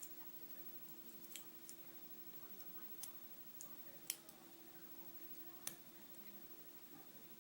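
A few faint, sharp metallic clicks, spaced a second or more apart, as the pins and springs are taken out of a gutted Euro lock cylinder, over a faint steady hum.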